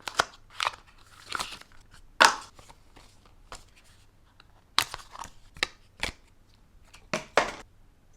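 AirTag packaging being opened by hand: a string of short crinkles, tears and crunches of paper and plastic, in two clusters with a pause between, the loudest about two seconds in.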